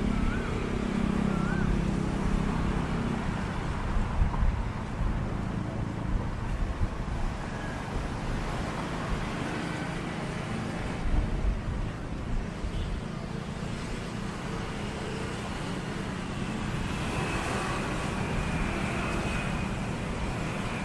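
Steady road traffic: car and other vehicle engines running and passing, with a low engine drone loudest in the first few seconds.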